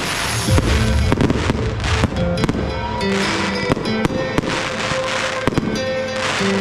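Fireworks display going off: many sharp bangs in quick succession as shells and rising comets burst, with hissing and crackling between them, over music with sustained notes.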